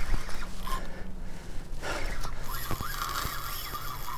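A man breathing hard and gasping as he strains against a large striped bass on a tight-drag spinning rod, with the spinning reel being cranked.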